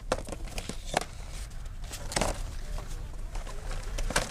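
Clear plastic blister packs on cardboard toy cards crinkling and clicking as they are handled and shifted on a store peg hook: a few separate clicks and one longer crinkle about two seconds in.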